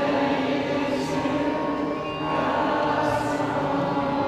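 Congregation singing a worship song together in long held notes, moving to a new phrase about two seconds in.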